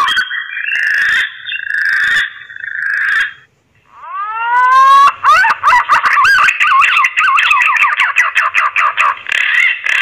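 Green pigeons (punai) calling with their mating call, used as a lure call: warbling whistled notes, a short break about three and a half seconds in, then a few rising whistled glides that run into a long, fast warbling whistle.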